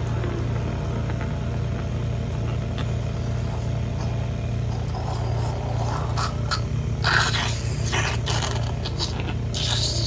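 Suction machine running with a steady low hum while a thin suction catheter in the child's mouth sucks up secretions, heard from about five seconds in as irregular hissing, scraping slurps that are loudest about seven seconds in and again near the end.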